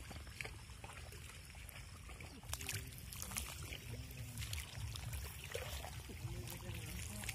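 Fish splashing and thrashing in shallow pond water, a series of small irregular splashes over a steady low rumble of wind on the microphone.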